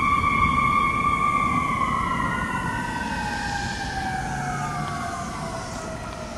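Fire ladder truck's siren wailing, its pitch holding for a moment and then sliding slowly downward as it fades with the truck driving away, over a low road rumble.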